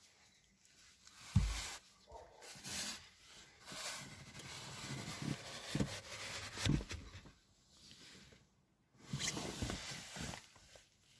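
A cloth rag wiping and rubbing along a car door's window, in irregular strokes of scuffing noise, with a dull thump about a second and a half in.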